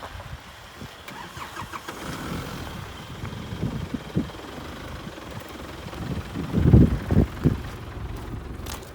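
Off-road vehicle's engine running unevenly, with a louder low burst about two-thirds of the way through.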